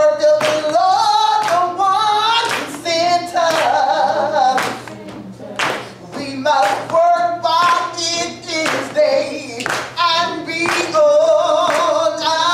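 A woman singing a gospel song solo into a microphone, holding and sliding between notes, with handclaps keeping a steady beat.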